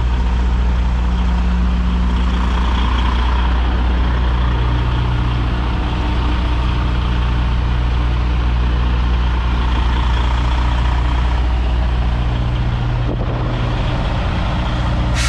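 Diesel engine of a semi-truck running steadily at low revs while the tractor-trailer is slowly backed up.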